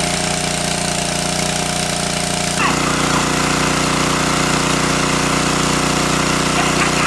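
Small engine-driven water pump running steadily as it pumps water out of a stream pool through its hose. Its note shifts slightly about two and a half seconds in.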